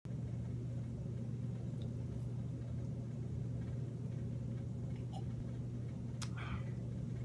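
Steady low electrical hum in a small room, with a faint click about six seconds in as a glass is set down.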